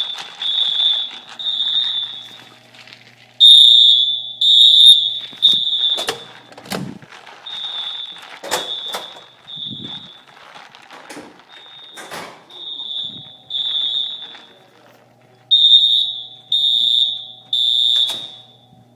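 Edwards 682 mini fire alarm horns sounding in the temporal-three evacuation pattern: buzzy high-pitched beeps in groups of three, each group followed by a pause. The horns grow louder and softer as the listener moves past them. A few sharp knocks fall between the beeps.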